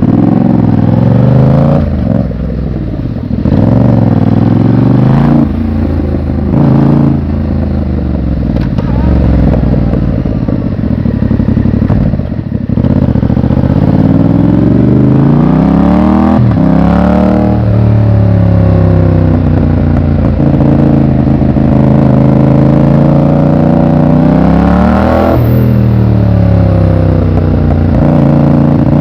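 Yamaha MT-07's 689 cc crossplane parallel-twin engine under way, its pitch climbing as the bike accelerates and then dropping sharply at each gear change, several times over, with a longer steadier stretch of cruising in between.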